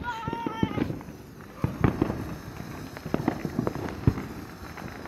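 Ground fountain firework spraying sparks, with irregular sharp crackles and pops.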